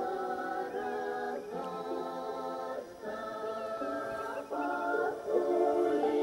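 Music: voices singing a slow song in long held notes, like a choir.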